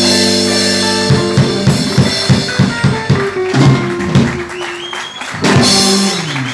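Blues band with drum kit and electric guitar playing the song's ending: a held chord, then a quick run of drum strokes, and a final loud crash with the chord ringing about five and a half seconds in.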